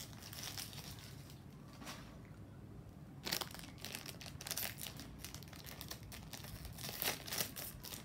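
Crinkling of a small plastic blind-bag packet being handled and opened by hand. It is quiet at first, then a run of sharp crackles starts about three seconds in.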